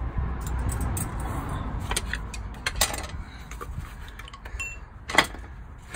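Hand tools tapping and clinking on the metal of a prop shaft CV joint. A scatter of sharp metallic clicks, the loudest a little after five seconds in.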